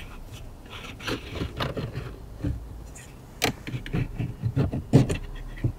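Audi A4 B8 pleated cabin air filter being slid and pulled out of its plastic housing by gloved hands: irregular scraping and rubbing with a few sharp knocks, the loudest about five seconds in.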